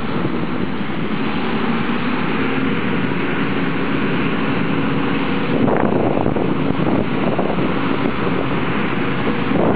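Combine harvester running steadily at work in wheat, its engine and threshing machinery making a continuous loud drone, with wind buffeting the microphone in gusts about six seconds in and again near the end.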